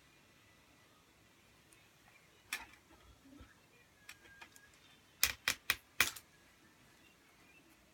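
Sharp clicks and taps against a quiet room: a single click, a few lighter ones, then a quick run of four about five seconds in.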